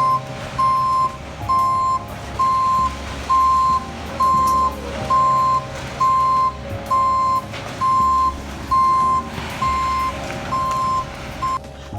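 Back-up alarm of a ready-mix concrete truck beeping steadily, about one beep a second, over the truck's engine running low as it reverses in. The beeping stops shortly before the end.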